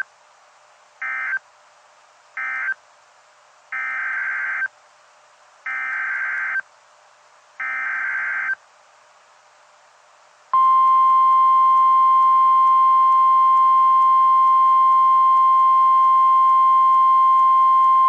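NOAA Weather Radio emergency alert data bursts: three short screeching SAME bursts ending one tornado warning, then three longer bursts announcing the next. About ten and a half seconds in, the steady 1050 Hz warning alarm tone starts and holds.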